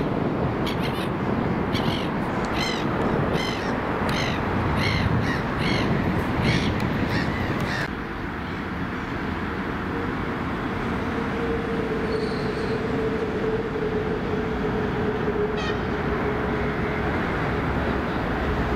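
A crow cawing over and over, about one and a half caws a second, over steady background noise. About eight seconds in the sound cuts to an approaching ET2M suburban electric train, with a steady tone held for several seconds, falling slightly in pitch.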